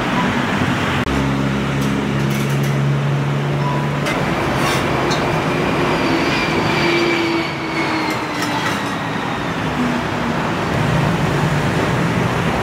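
Steady street traffic noise, with a vehicle engine humming close by for a few seconds near the start and a faint falling whine later on.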